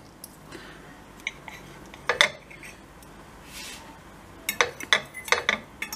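Metal knife and fork clinking and scraping on a china plate while cutting food. Scattered clinks, a sharp one about two seconds in and a quick run of them near the end.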